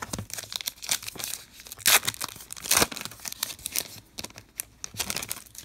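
A Topps Star Wars trading card pack wrapper being torn open and crinkled by hand: a run of sharp tearing and crackling noises, loudest about two and three seconds in.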